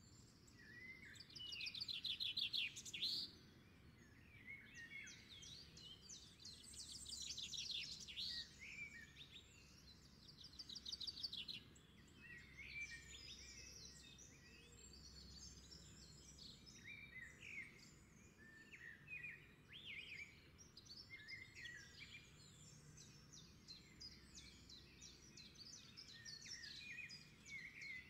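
Several birds singing and calling over one another, with bursts of rapid trills in the first dozen seconds and shorter scattered chirps after.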